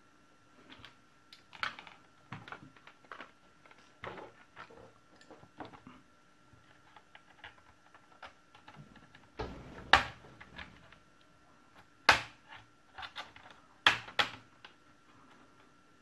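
Plastic clips of an HP Compaq Presario CQ61 laptop's top case clicking and snapping as pry tools work the palmrest loose from the base, irregular small clicks with a few louder, sharper snaps in the second half.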